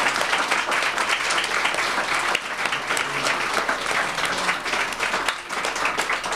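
Audience applauding: a dense, steady run of many hands clapping.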